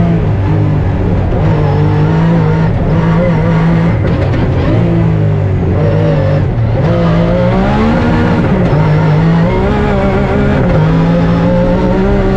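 Rally-raid car's engine running hard at high revs, its pitch breaking and stepping every second or two as it shifts gear and lifts off, with a rev that climbs and falls back about eight seconds in.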